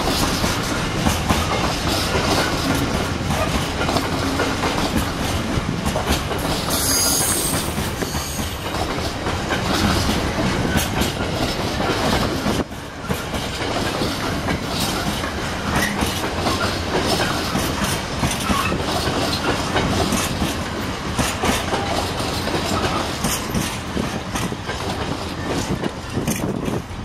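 Container freight train rolling past, its wagon wheels clattering steadily over the rail joints, with a brief high-pitched wheel squeal about seven seconds in.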